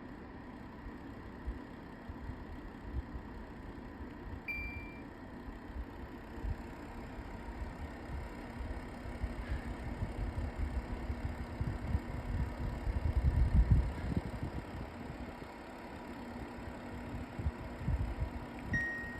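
LG AeroTower air-purifier fan running with a steady hum and an irregular low vibration rumble that swells about two-thirds of the way through. This is the buzzing vibration the owner reports at fan speeds 5 and above, which LG's engineer calls normal after finding no foreign object inside. Two short electronic beeps sound, one about four seconds in and one near the end.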